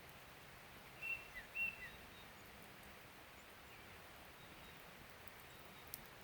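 Two short bird chirps about a second in, half a second apart, over a faint steady outdoor background hiss.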